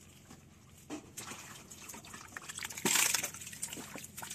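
Seawater splashing and dripping in a shallow rock pool as gloved hands grope among the rocks for fish, with scattered small splashes and one louder splash about three seconds in.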